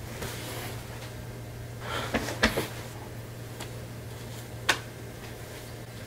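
A few light knocks and rustles of handling close to the microphone, a cluster about two seconds in and a single sharp click near five seconds, over a steady low electrical hum.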